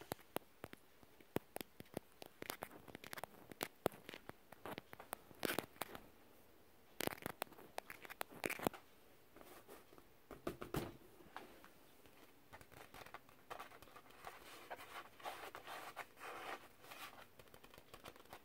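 ASMR tapping and scratching with fingertips and nails on assorted objects, including a rainbow nylon fabric ball and an inflatable vinyl ball. Sharp taps come in quick, irregular runs, giving way to denser scratching strokes in the second half.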